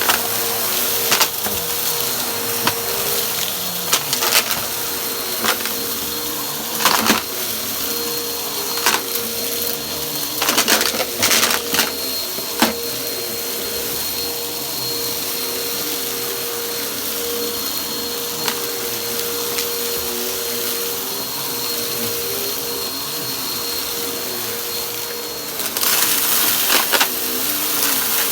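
Vacuum cleaner running with a steady hum and whine, with scattered sharp clicks and crackles of crunchy debris being sucked up. Near the end the whine drops out and the rushing hiss grows louder.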